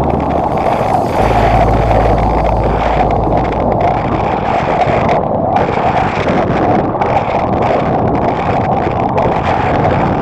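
Small motorboat with a Yamaha outboard running under way: a steady rush of engine, water and wind buffeting the microphone.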